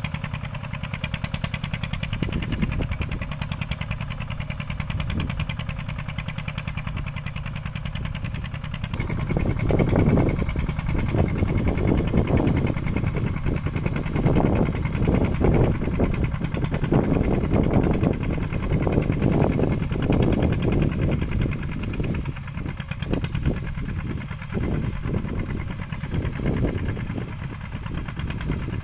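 Mini farm tractor engine running steadily while plowing. About nine seconds in, a louder, uneven rushing noise joins it and rises and falls for a while.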